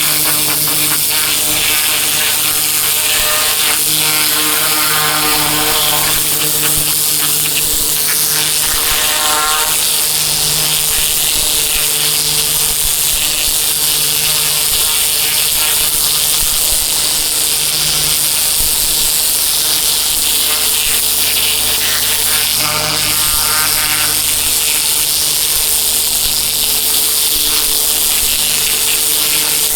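Pressure washer running steadily, its motor and pump humming under the loud hiss of the high-pressure water jet spraying across paving.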